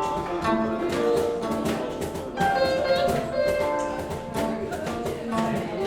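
Live instrumental music: a plucked string instrument plays a run of melodic notes over a drum kit.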